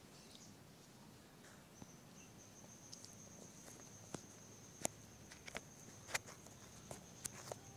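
Steady high-pitched insect trill that sets in about two seconds in, with scattered sharp clicks in the second half.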